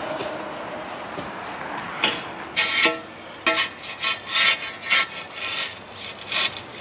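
Metal shovel scooping dirt out of a steel wheelbarrow to backfill a fence post hole: an irregular run of short scrapes, about two a second, beginning about two seconds in.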